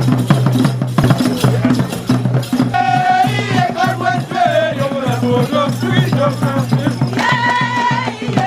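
Music with a quick shaker and rattle rhythm over a steady low pulse, with a pitched melody line entering about three seconds in and again near the end.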